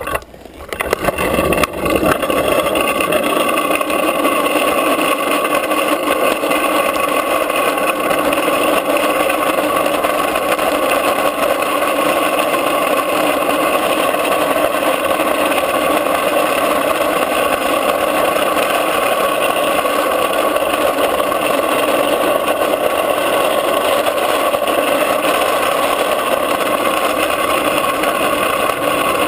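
Drift trike rolling downhill on asphalt: a steady rolling noise from its hard plastic rear wheels on the road surface, which settles into an even level about two seconds in.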